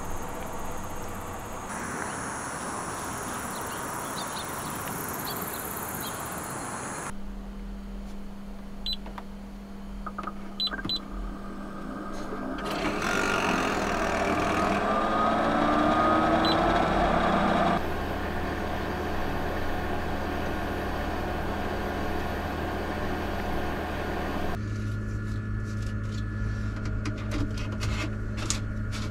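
Portable air conditioner running: fan air rush over a steady motor and compressor hum, set to its weak fan setting. Midway a whine rises in pitch and the air noise swells to its loudest. A few short clicks and beeps come from its control buttons, and the hum jumps abruptly between steady tones a few times.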